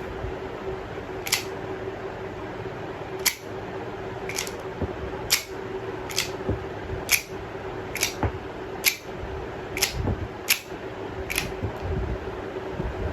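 A series of about eleven sharp metallic clicks from a 9mm M9A3-pattern pistol being handled, roughly one a second, over a steady low hum.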